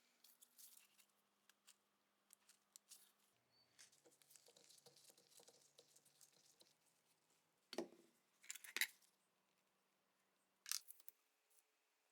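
Faint hand-work noises: scattered light scrapes and clicks, with three louder short scrapes, two close together around two-thirds of the way through and one near the end.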